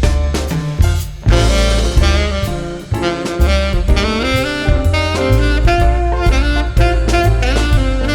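Instrumental break of a Cantopop ballad: a sustained lead melody over bass and a steady drum beat, between sung verses.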